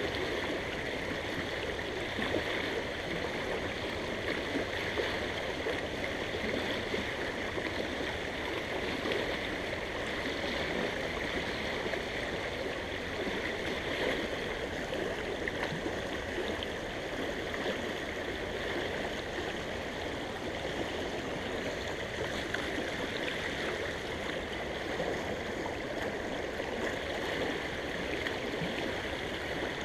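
Shallow creek water rushing steadily over rocky riffles.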